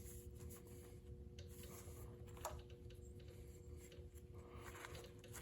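Near silence: faint room tone with a steady low hum and a few faint small clicks, one a little louder about halfway through.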